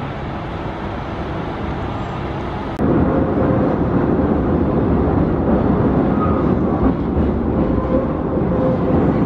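A steady outdoor rumble, then from about three seconds in the louder rumble of a CTA 'L' train heard from inside the car as it runs along the elevated track, with a faint steady whine over it.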